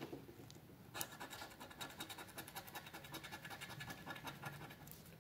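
A coin scraping the coating off a scratch-off lottery ticket in fast, repeated strokes, starting about a second in.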